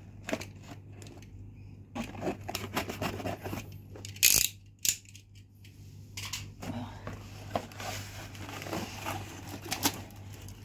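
Cardboard box being opened and handled by hand: flaps rustling and scraping, with irregular sharp clicks and knocks, the loudest about four seconds in.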